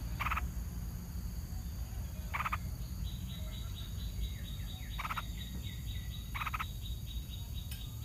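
Yellow-vented bulbul giving short, harsh, rasping alarm calls near its nest, four of them one to two and a half seconds apart. From about three seconds in, a fast, high ticking series runs at about five ticks a second.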